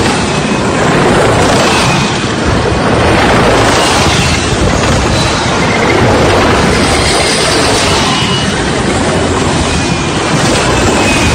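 Loud steady mechanical noise of a column of tanks on the move, their engines and tracks mixed with the road and wind noise of a car driving past them. Faint high whines come and go over it.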